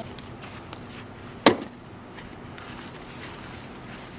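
A bean bag hitting the toss board, one sharp thud about a second and a half in.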